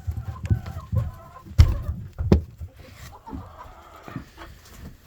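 Hens clucking softly, with two sharp knocks about a second and a half and two seconds into the sound.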